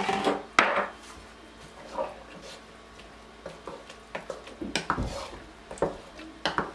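Wooden spatula stirring thick okra soup in a pot: wet scraping with scattered sharp knocks of the spatula against the pot, the loudest just after the start and about five seconds in.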